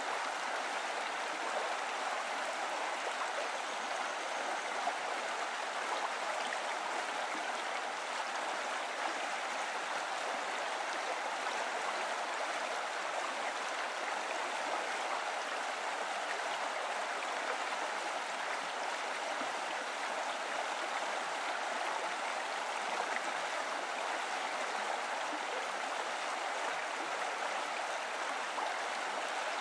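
Steady running water, an even rushing that does not change.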